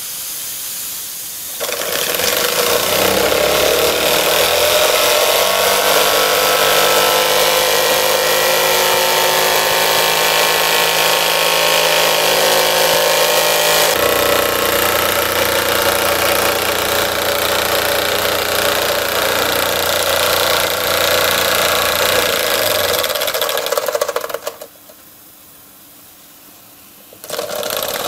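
DM-1 model steam engine driving a small dynamo, starting up about two seconds in and picking up speed over the next few seconds. It then runs fast and steadily with a pitched whir and hiss. It drops away for a couple of seconds near the end, then comes back.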